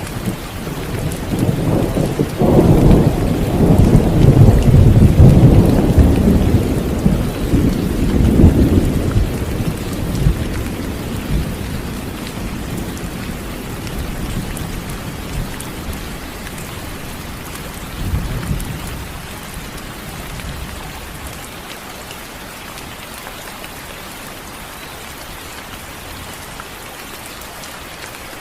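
Thunderstorm: a long, loud roll of thunder rumbles for several seconds and fades, a shorter rumble follows near the middle, and steady rain falls throughout.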